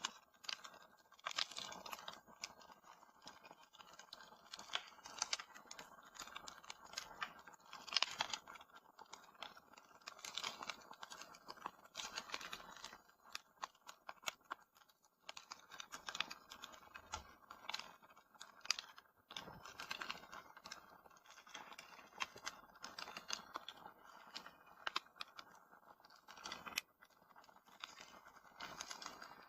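Wood fire crackling in a fireplace: irregular snaps and pops over a soft steady hiss.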